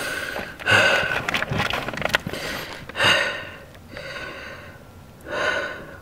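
A man breathing heavily through his mouth in slow, loud gasps, a few breaths a couple of seconds apart, exhausted and overheated in a cramped space.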